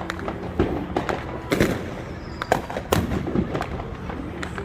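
Fireworks going off: a dense string of crackles with several sharp bangs standing out among them.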